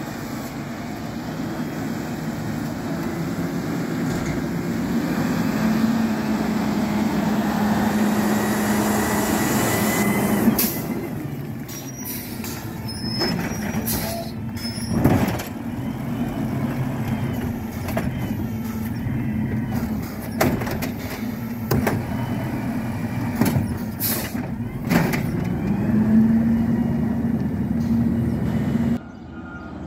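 Natural-gas Autocar ACX Xpeditor garbage truck running close by as it pulls up and stops. A string of sharp knocks and bangs follows, the loudest about halfway through. The engine note rises again near the end as the truck pulls away.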